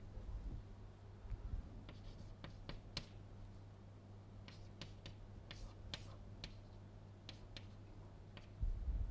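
Chalk tapping and scraping on a chalkboard as an equation is written: a string of sharp clicks at irregular intervals over a low steady hum. A dull thump comes near the end.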